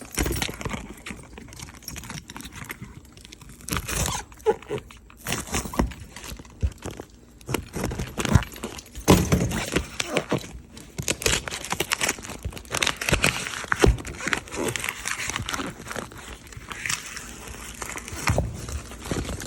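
A shipping box and its packing material being torn open by hand: irregular crinkling, tearing and rustling with sharp clicks.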